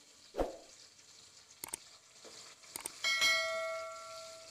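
Subscribe-button sound effect: two sharp clicks about a second apart, then a bell chime about three seconds in that rings out and fades over a second and a half. A faint sizzle of masala frying in the pan and a soft knock near the start lie under it.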